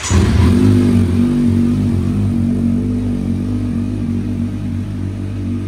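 Kawasaki Z900's inline-four engine, fitted with an aftermarket slip-on exhaust, catching on a cold start. It is loudest in the first second or so, then settles into a steady idle.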